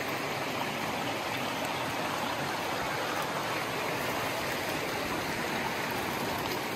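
Creek water rushing steadily through a sluice box lined with a dream mat, washing gathered gravel for gold.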